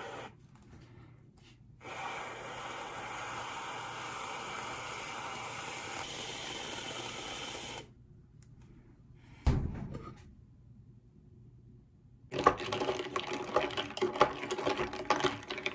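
Aerosol whipped-cream can spraying in one steady hiss for about six seconds. A single knock follows, then a fork stirring a drink in a glass with rapid clinking near the end.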